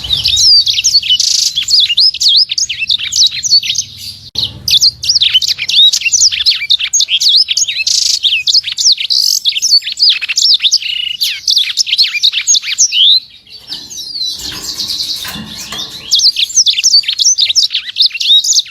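Small songbird (the 'sanger' of Indonesian bird-keeping) singing a rapid, dense stream of sharp high chirps and quick up-and-down whistled notes, with brief pauses about four seconds in and around thirteen seconds in.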